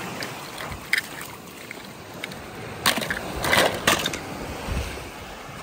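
Die-cast toy car dropped into a plastic tub of other toy cars: a few short clicks, then a burst of sharp clattering between about three and four seconds in. A faint steady hiss of wind and surf lies underneath.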